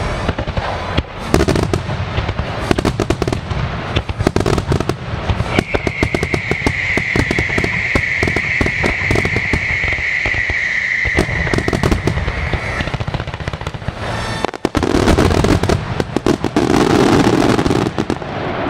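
Fireworks finale: rapid, continuous bangs and crackling from aerial shells going off in quick succession. A steady high whistling tone holds for about seven seconds in the middle, and the barrage swells loudest near the end.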